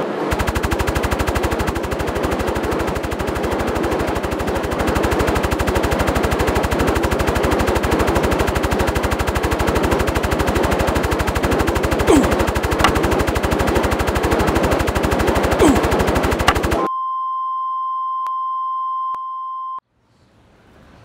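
A rapid, even chopping sound of a quadcopter drone's rotors runs for about 17 seconds, with a few short squeals over it. It cuts off suddenly, and a steady electronic beep tone holds for about three seconds, stepping down slightly near its end.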